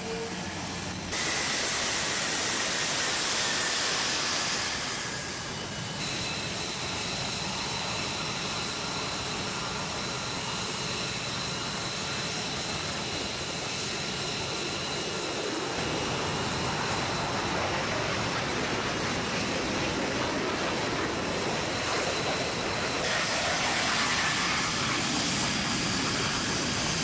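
Jet fighter engines running on the ground: a steady rushing hiss with a high-pitched turbine whine. The sound shifts abruptly a few times.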